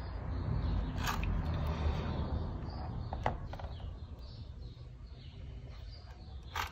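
A low background rumble with a few light, sharp clicks, one about a second in, one near the middle and one near the end, as a thin applicator dabs two-part epoxy onto the plastic housing of a VW Golf/Jetta Mk6 door lock.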